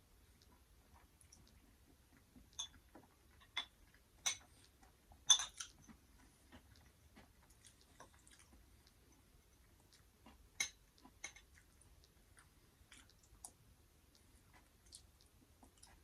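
A person chewing food, with scattered short clicks and a few louder sharp clicks.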